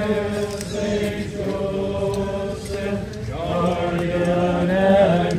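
A group of voices singing a slow hymn together in unison, holding long notes, with the melody moving to a new pitch about three seconds in.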